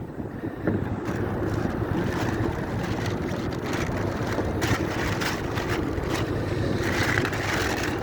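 Steady low rumble of city street traffic, with a few short handling noises and a brief hiss about seven seconds in.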